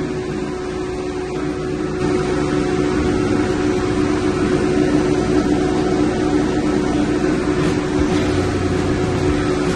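Steady drone of running machinery in a chiller plant room, with a strong, constant mid-pitched hum over a low rumble and hiss; it grows slightly louder about two seconds in.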